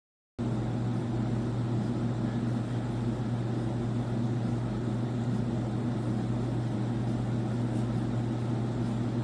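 Dirt Devil Razor Pet upright vacuum running with a steady low hum that starts sharply about half a second in; the owner finds melted plastic and takes the fault for a seized bearing.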